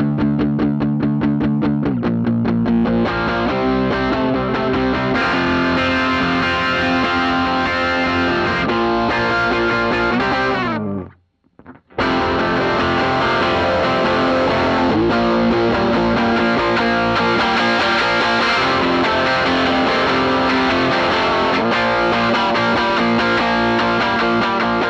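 Electric guitar played through an overdrive pedal into a cranked Bassman amp, with fast picked notes at first and then sustained distorted chords. The sound cuts out for about a second around the middle, then the playing picks up again.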